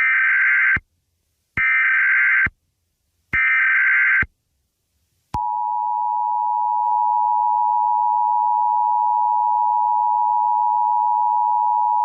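Emergency Alert System SAME header: three identical short bursts of warbling digital data tones. About five seconds in, the long steady two-tone EAS attention signal begins, announcing a new alert.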